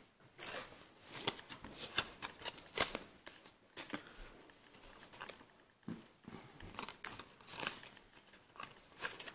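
Yu-Gi-Oh trading cards sliding and flicking against each other as a stack is thumbed through, card by card: a faint, irregular run of short scrapes and clicks.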